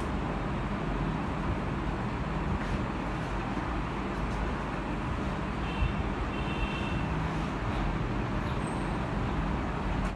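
Steady background noise with no speech and no sharp sounds apart from one faint knock about six seconds in.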